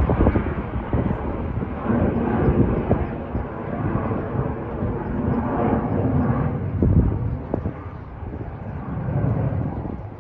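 Jet airliner passing high overhead, a steady distant rumble that eases somewhat in the second half.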